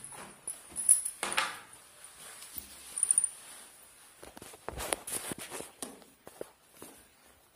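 Handling noise from a smartphone's cardboard retail box as it is turned over and its wrapping pulled off. Scattered taps, clicks and rustles come with a cluster of knocks about five seconds in, over a faint steady high hiss.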